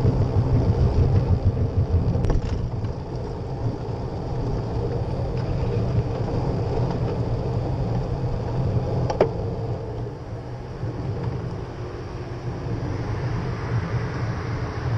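Wind buffeting the microphone of a GoPro Session camera on a moving bicycle, heard as a fluctuating low rumble, with road noise from the ride on asphalt. Two sharp clicks stand out, about two seconds in and about nine seconds in.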